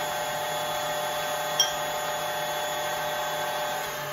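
Stand mixer motor running on high with a steady whine, whipping meringue; it is switched off just before the end. A single sharp click comes about one and a half seconds in.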